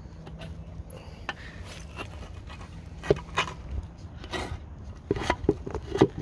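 A rod scraping and prodding through thick, packed EGR soot inside a split diesel intake manifold, with scattered scrapes and clicks against the metal. These come thicker in the second half.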